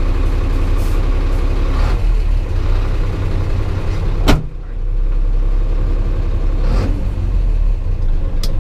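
HOWO 6x4 truck's diesel engine idling steadily, with a sharp click about four seconds in and a fainter one near the end.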